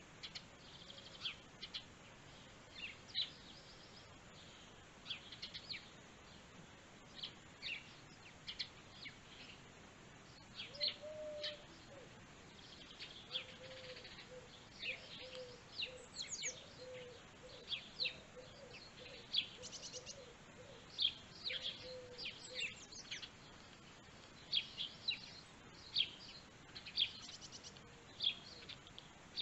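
Small birds chirping and calling, with many short, high calls scattered throughout and a lower, repeated call running through the middle stretch.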